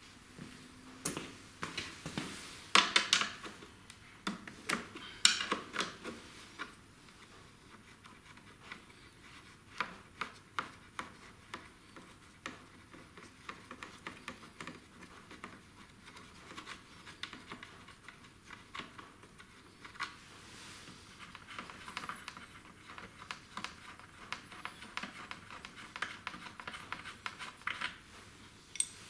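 Scattered clicks, taps and scratches of hands handling the recoil pull starter and pull cord on a Honda GCV160 mower engine. The loudest knocks come about three and five seconds in.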